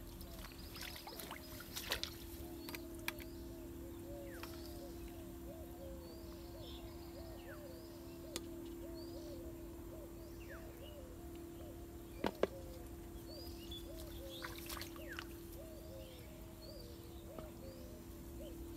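Rural pond-side ambience: birds chirping over a fast, evenly repeating low animal call and a steady low hum. A few sharp clicks stand out, the loudest a quick pair about twelve seconds in.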